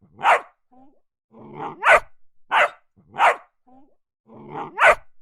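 A dog barking in a repeating pattern: a lower sound gliding up in pitch straight into a sharp bark, then two more barks about two-thirds of a second apart. The same three-bark sequence comes round about every three seconds.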